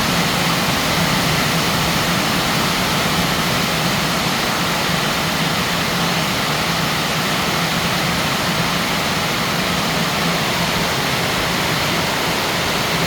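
Heavy rain pouring down steadily: a dense, even wash of noise that does not let up.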